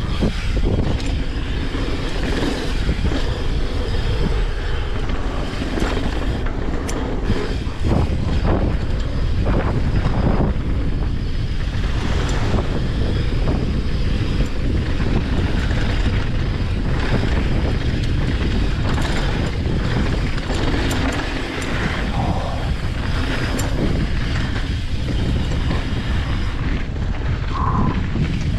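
Wind buffeting the action camera's microphone as a mountain bike rides fast down a hard-packed dirt trail, with tyres rolling over the dirt and the bike clattering in short knocks over bumps.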